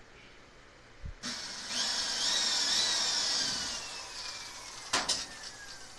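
Cordless drill boring a hole into a bamboo tray frame: the motor starts about a second in and runs at speed for about two seconds, then the high whine falls slowly in pitch as the motor winds down. Two sharp knocks come about five seconds in.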